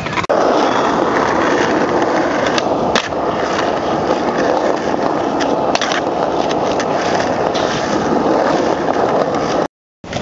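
Skateboard wheels rolling over stone paving, a steady rolling noise with a few sharp clicks about 3 and 6 seconds in. The sound drops out to silence for a moment near the end.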